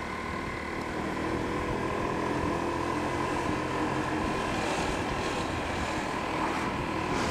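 Honda PCX scooter's single-cylinder four-stroke engine running at a steady drone while riding, heard with road and wind noise from a helmet-mounted microphone.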